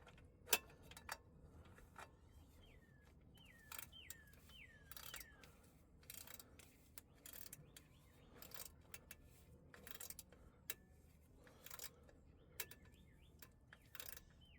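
Faint, scattered clicks of a small ratchet and its 7mm socket working on a bolt, with a few short, falling bird chirps in the background.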